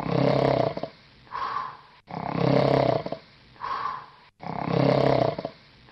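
Loud snoring of the sleeping wolf: a long snore on each in-breath followed by a shorter, higher breath out, repeating about every two seconds, nearly three times.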